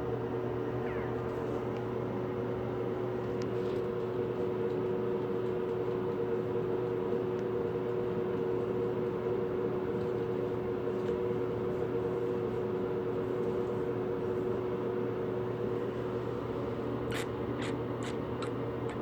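Steady mechanical hum with a couple of constant tones, like a household appliance running. A few short clicks come near the end.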